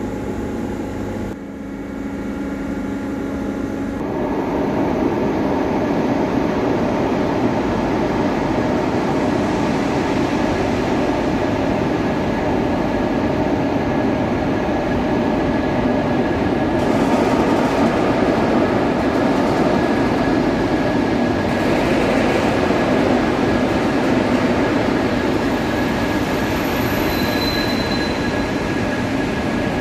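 Passenger train running through the station: a steady rumbling noise with a faint constant high whine, building up over the first few seconds and then holding.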